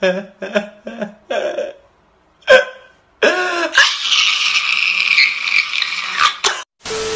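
A man crying hard: a run of short, gasping sobs, then a loud drawn-out wail that breaks into a hoarse cry for a couple of seconds. A short steady tone starts near the end.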